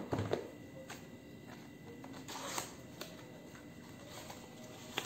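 A small cardboard box and the paper sachets inside it being handled: scattered rustles, taps and scrapes as the sachets are pulled out, with a few sharper clicks near the start and in the middle.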